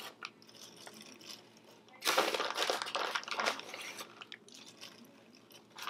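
Plastic bag of shredded cheddar crinkling as a hand reaches in and takes out cheese to sprinkle over popcorn. A few faint rustles, then a burst of crinkling about two seconds in that lasts a second and a half, and light rustles after.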